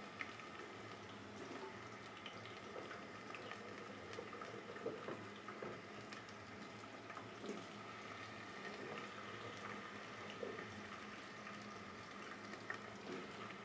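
Faint, steady sizzling with scattered small pops from sliced potatoes starting to fry in a pot of cooking oil.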